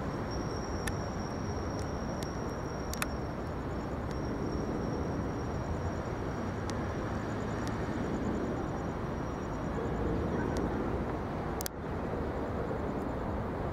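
Jet noise from a Boeing 747-8's four GEnx engines as the airliner passes low on approach, a steady rumble that swells a little about eight to ten seconds in, with a brief dip near the end and a few faint clicks over it.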